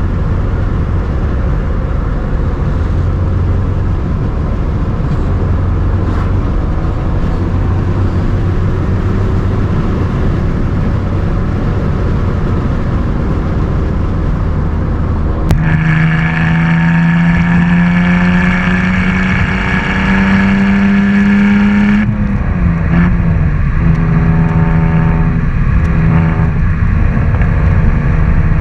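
BMW inline-six engine heard from a moving car: first a steady low drone with road noise. About halfway through it changes suddenly to a louder engine note that climbs slowly in pitch under acceleration, dips briefly, then holds steady.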